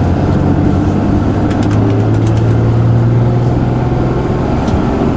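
Deleted 6.7-litre Cummins turbo-diesel of a Ram 4500 running steadily under load while towing a heavy trailer, a constant low drone.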